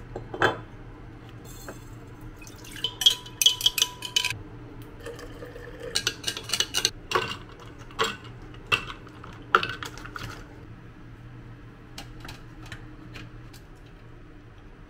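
Glassware clinking: ice cubes knocking against a glass pitcher and the pitcher set down on a stone countertop, in bunches of sharp clinks, one with a brief ringing tone. A few lighter ticks follow near the end.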